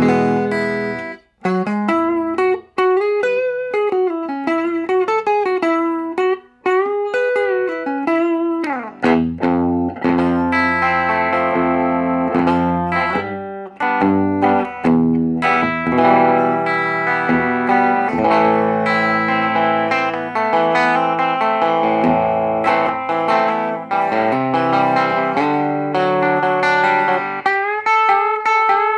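1957 Fender Telecaster electric guitar played through an amplifier. It opens with a single-note lead line full of string bends and vibrato. About nine seconds in it moves to strummed chords and double stops that ring on.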